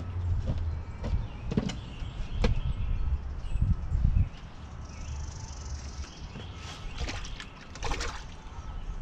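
Scattered knocks and scrapes of a knife and fish on a plastic folding table while tilapia are cleaned. A low rumble runs under the first half and stops abruptly about four seconds in.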